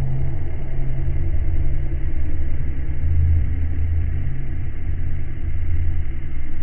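A loud, steady low rumble that swells and eases a little.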